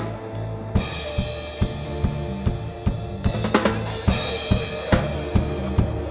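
Live band playing: a Pearl drum kit keeps a steady beat with kick, snare and hi-hat over low held bass notes from the keyboards, with cymbal crashes about a second in and again around four seconds in.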